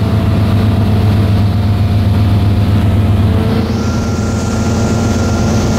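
The 1999 Maxum 2400 SCR cruiser's MerCruiser engine with Alpha sterndrive running at speed, a steady low hum heard from the helm, described as smooth and quiet. About three and a half seconds in the engine note shifts and a rush of wind and water comes up.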